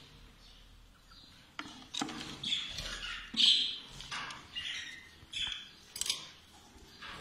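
Budgerigars chirping and squawking in a string of short, high calls that start about one and a half seconds in, mixed with a few sharp clicks.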